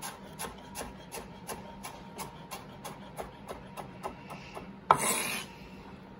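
Chef's knife chopping diced mango on a cutting board, about three quick chops a second. About five seconds in comes a louder knock and a brief scrape as the blade is drawn flat across the board, gathering the cubes.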